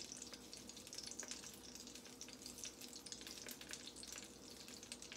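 Butter and oil heating in a cast iron skillet: a faint, steady sizzle with many small crackling pops.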